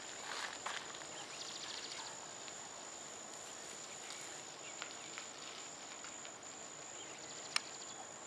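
Rural outdoor ambience dominated by a steady high-pitched insect drone, with a few faint scattered clicks and one sharper click near the end.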